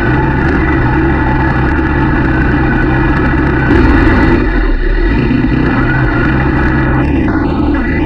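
Quad ATV engine running at a steady speed while riding along a dirt trail, with a brief louder burst of noise about four seconds in.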